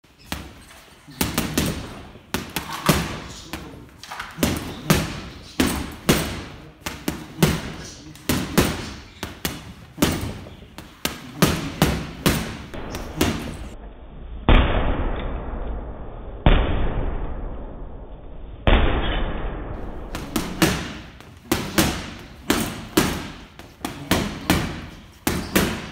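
Boxing-glove punches landing on a water-filled heavy bag: quick combinations of sharp slaps. In the middle, three heavier, duller thuds land about two seconds apart.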